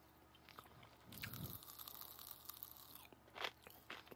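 Popping candy (Pop Rocks) crackling in a mouth close to the microphone: faint, irregular pops and snaps, with a brief low hum about a second in.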